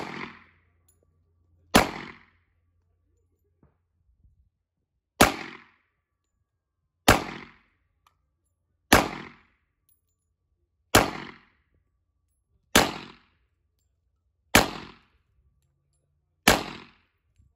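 A .40-calibre Glock pistol firing eight single shots, one about every two seconds, each ringing out briefly after the crack. It cycles without a jam from a standard 14-round magazine.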